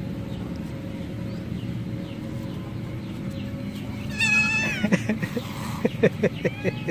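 A young cat gives one long, loud meow about four seconds in. A string of short, sharp sounds and a briefer meow follow near the end.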